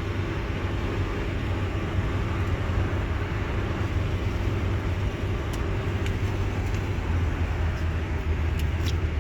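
Van driving at speed, heard from inside the cabin: a steady low engine and road drone with tyre and wind hiss.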